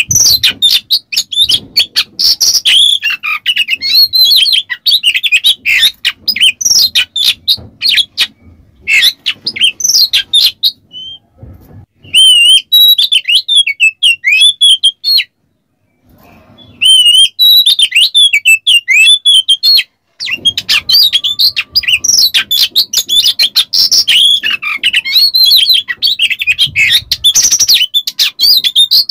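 Oriental magpie-robin (kacer) singing in rapid, harsh chattering runs of notes. Around the middle it breaks into clearer, wavering whistled phrases with two short pauses, then goes back to the dense, rough chatter.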